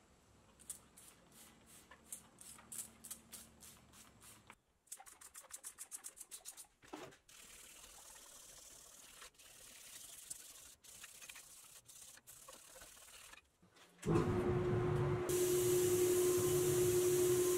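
Wet sandpaper rubbed by hand over filler primer on pressed-steel toy truck parts: faint rhythmic strokes, about three a second, then a quicker run, then slower scattered rubs. About fourteen seconds in, a much louder steady hiss with a steady hum takes over, from an air spray gun painting the parts.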